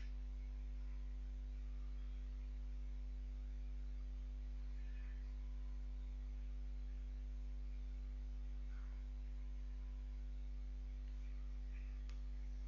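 Steady electrical mains hum with a stack of overtones, unchanging in level, with a faint click near the end.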